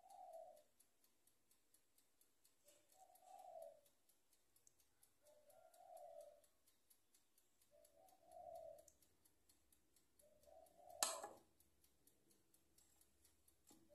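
Faint, soft sounds of thick cake batter being scooped and dropped from a spatula into a paper-lined loaf pan, coming about every two and a half seconds. There is one sharp click about eleven seconds in, and a faint fast ticking runs underneath.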